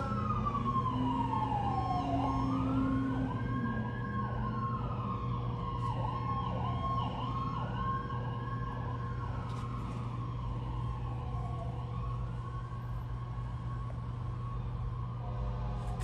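Emergency vehicle sirens from a responding Freightliner M2 ambulance and a Spartan Gladiator fire engine: a slow wail rising and falling every few seconds, overlapped by a rapid yelp that dies away about three quarters of the way through, over a steady engine rumble.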